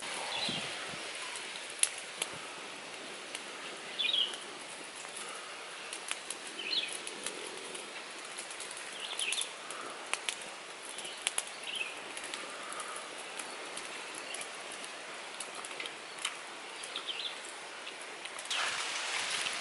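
Small open wood fire crackling, with scattered sharp pops and clicks over a steady outdoor hiss, and a few short bird chirps.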